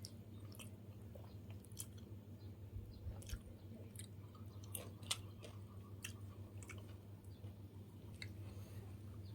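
A person chewing a mouthful of rice and fish, with wet mouth clicks and smacks at irregular intervals over a steady low hum.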